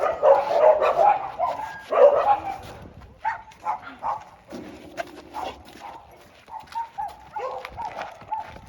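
Dogs barking and yipping in short, repeated barks, crowded and loudest in the first three seconds, then sparser.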